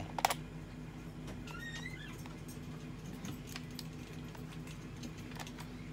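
A sharp plastic click as a Wonder Ride Book is pushed into the first slot of the Kamen Rider Saber toy transformation belt, followed by a few faint high chirps and light handling clicks over a steady low hum.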